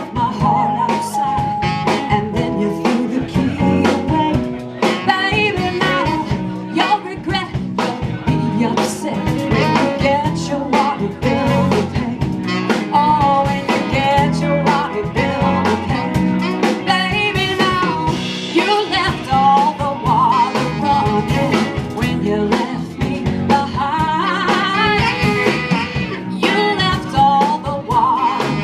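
Live band playing a soul-blues song, with a woman singing over electric guitar and a steady beat.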